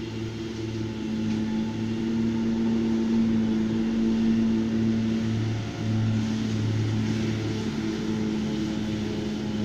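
Tractor engine running steadily under load while it drives a front and a rear mower cutting grass. The hum grows louder over the first few seconds as the tractor comes closer, with a short dip about six seconds in.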